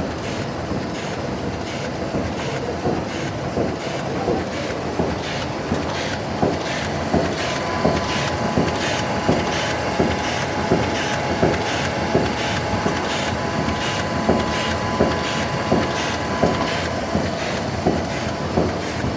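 Automatic sheet-to-sheet mounting machine running, a steady mechanical clatter with a regular clack about every 0.7 seconds, more distinct after the first few seconds. A thin steady whine sounds from about 7 to 16 seconds in.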